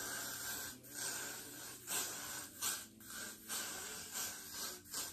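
Got2b Glued aerosol hairspray hissing out of the can in several bursts with short breaks between them.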